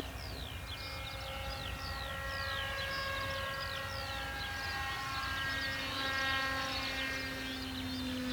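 RC model plane's electric motor and propeller holding a steady hum in flight, with birds repeating quick falling chirps a few times a second over it.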